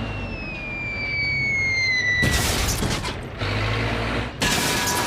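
Cartoon sound effects: a whistle sliding slowly downward for about two seconds, then a run of loud crashes and clattering impacts.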